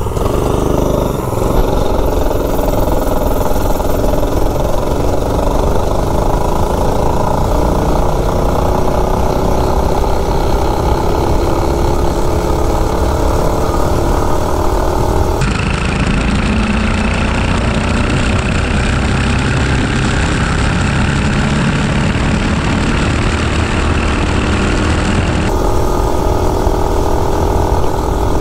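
Coleman CC100X mini bike's single-cylinder four-stroke engine, built on a governor-deleted Predator 212 block, running flat out at high revs, its note climbing slowly as the bike gathers speed. The tall gearing keeps it short of its 6,000 RPM rev limiter.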